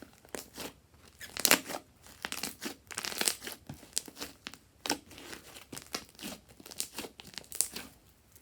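Fluffy slime being squeezed and stretched by hand, giving irregular crackling, crinkling pops, thickest about a second and a half to three and a half seconds in.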